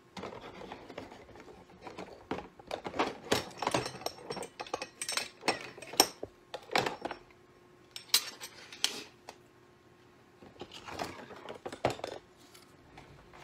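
Christmas ornaments being rummaged through and handled, a run of sharp clinks and knocks against each other and their container, with a short lull about two-thirds of the way through.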